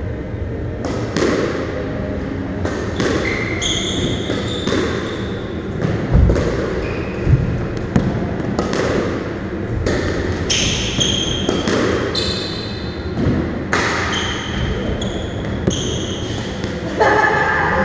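A squash rally: the ball cracking off rackets and the court walls in sharp knocks about once a second, echoing in the enclosed court, with shoes squeaking on the wooden floor between shots.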